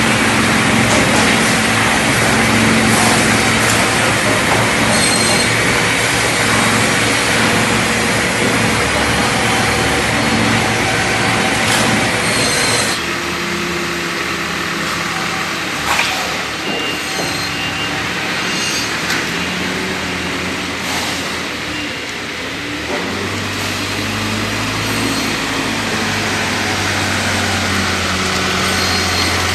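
Wood-processing factory machinery running: a loud, steady mechanical din with humming tones and a few sharp knocks. The sound changes abruptly about 13 seconds in and again about 23 seconds in.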